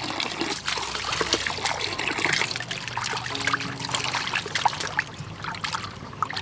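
A thin stream of water trickles into a metal bowl while hands rub and rinse pieces of raw fish, with small splashes and sloshing throughout.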